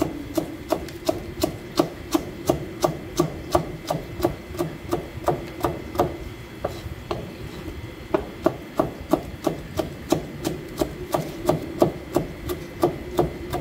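Chef's knife slicing bone-in gizzard shad sekkoshi-style on a plastic cutting board: a steady run of knife strokes, about three a second, each a sharp tap on the board, with a brief slowdown about halfway. The knife passes easily through the bones, which the cook takes as the sign of a fat, oil-rich shad with soft bones. A steady low hum sits under it.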